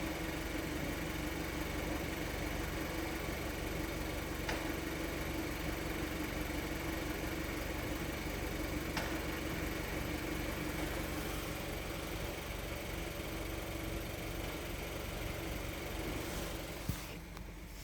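Seat Leon Mk3's 1.4 TSI four-cylinder turbo petrol engine idling with a steady whirring hum from the clutch as the pedal is held down, which Seat puts down to the clutch bearings and calls normal as long as it doesn't get worse. Near the end a click, and the whir drops away.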